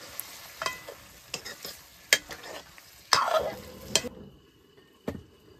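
Food sizzling in a pan while being stirred, with a utensil clicking and scraping against the pan. The sizzle cuts off abruptly about four seconds in, and a single knock follows near the end.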